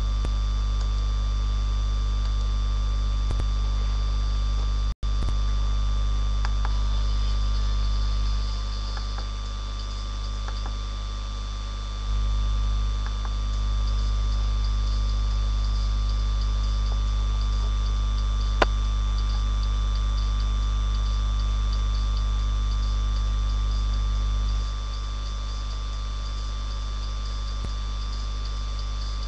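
Steady electrical mains hum with several high, thin steady whines over it, dropping a little in level twice. The audio cuts out briefly about five seconds in, and there is a single sharp click later on.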